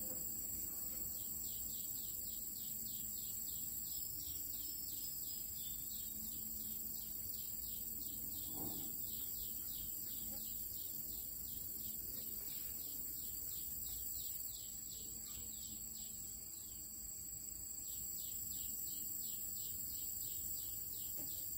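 Insects chirping in vegetation: a steady, high, thin trill under a rapid run of short descending chirps, about three a second, that starts about a second in.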